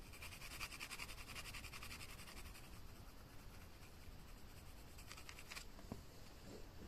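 Pencil shading on tempera-painted card, a surface that scratches a lot: faint, rapid, even scratching strokes that stop about five and a half seconds in.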